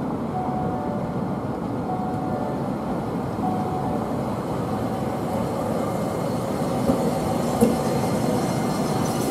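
Toei 8800-series tram running past at low speed, a steady rumble of wheels on rail and traction equipment, with two sharp clacks near the end as it goes by.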